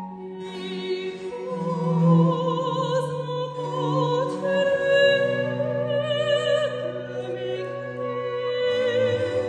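Soprano singing a French Baroque cantata aria with vibrato, accompanied by a wooden baroque flute and a basso continuo of harpsichord and cello holding long bass notes.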